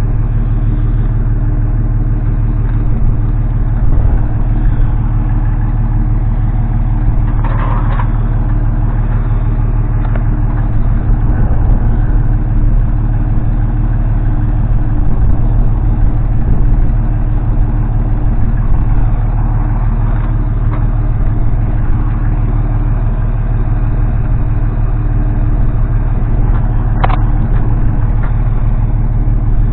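An engine idling steadily at an unchanging speed, with a couple of brief knocks or clanks, one about eight seconds in and one near the end.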